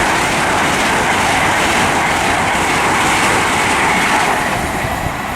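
Class 800 train set 800207 passing through the station at speed: a loud, continuous rush of wheel and air noise with rail clatter, easing a little toward the end.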